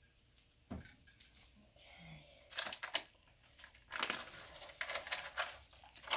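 Cold-process soap being handled on a soap cutter: a single knock about a second in, then bouts of crackly rustling and scraping from about two and a half seconds on.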